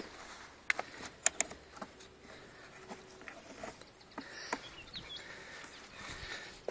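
Sharp clicks and light taps from hands handling a wooden coop's shingled roof and metal latch, loudest as a quick cluster in the first second and a half. A bird chirps briefly about halfway through.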